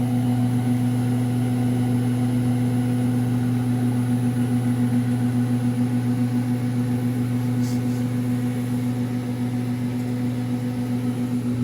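LG Smart Inverter microwave oven running through a cooking cycle: a steady low electrical hum with a fainter overtone above it, unchanging throughout.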